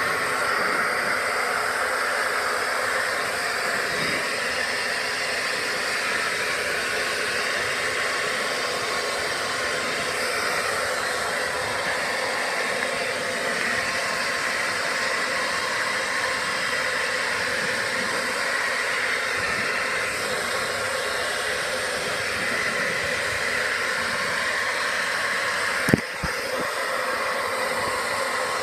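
Hair dryer blowing steadily, with a single sharp knock near the end.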